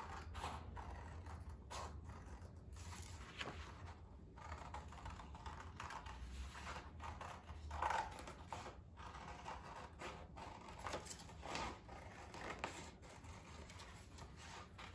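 Scissors cutting red construction paper: a string of faint, irregular snips as an oval is cut out.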